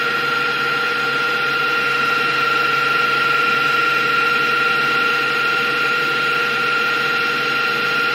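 KitchenAid Professional 5 Plus stand mixer running steadily, its wire whisk beating egg whites as they foam and rise. A constant motor whine with one clear high tone.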